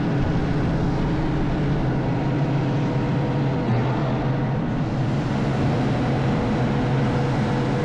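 Concrete mixer truck's diesel engine running with a steady low rumble and a faint steady whine above it.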